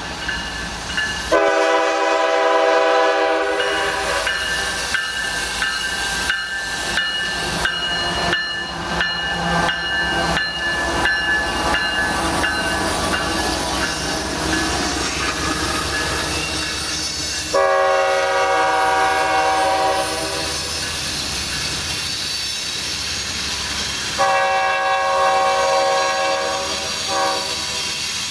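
Freight train with GE ES44AC and AC60CW diesel locomotives passing close by. The locomotive air horn sounds a long chord about a second in, another around seventeen seconds in, and a long one then a short one near the end, over a steady diesel rumble and the rhythmic clicking of wheels over the rail joints.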